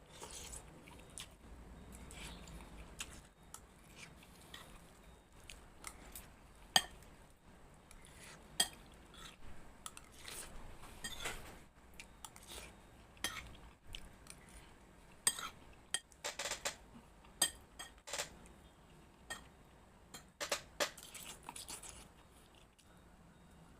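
Eating sounds: a spoon clinking and scraping against a plate in irregular taps, with chewing in between.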